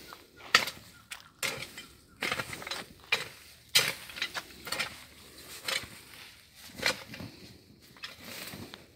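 Dry leaves, twigs and brush crunching and snapping underfoot and by hand in undergrowth: irregular sharp crunches, about one or two a second.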